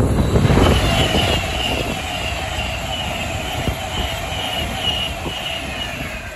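Class 390 Pendolino electric express train passing close by at speed: a steady rush of wheels on rail with a high whine over it, fading near the end as the last car goes by.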